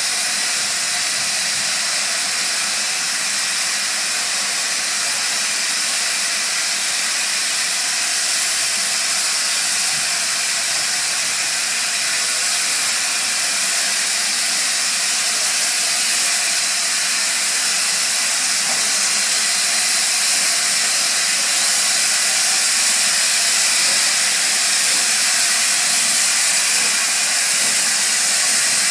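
LNER A4 Pacific steam locomotive Bittern moving off slowly, steam hissing steadily from its open cylinder drain cocks. The hiss grows a little louder as the engine draws nearer.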